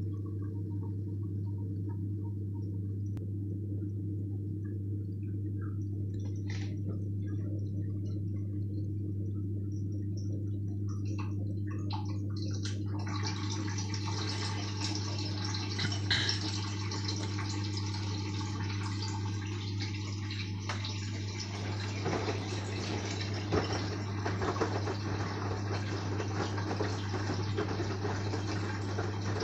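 LG front-loading washing machine's drain pump humming steadily as it pumps out the wash water before the interim spin. About halfway through, a loud rush of water joins the hum and keeps going.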